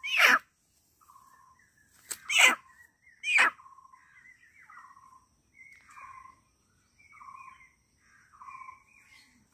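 Domestic hen, held in the hands, letting out three loud, short squawks in the first few seconds, then a run of softer calls that fall in pitch, about one a second.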